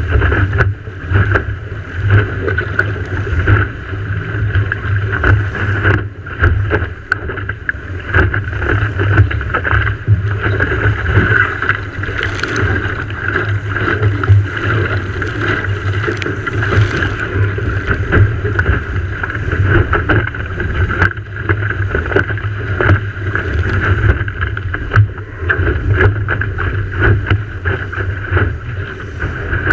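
Wind buffeting the microphone with water rushing and slapping against the hull of a Farr 3.7 sailing skiff under way, a continuous loud rumble and hiss broken by frequent small knocks and splashes.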